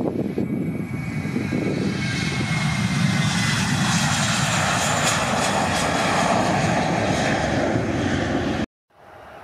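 Airbus A321 jet airliner's twin engines at takeoff power as it rolls and lifts off close by, a loud steady roar with a fan whine gliding down in pitch as it passes. The roar cuts off abruptly near the end, followed by a much fainter steady engine noise.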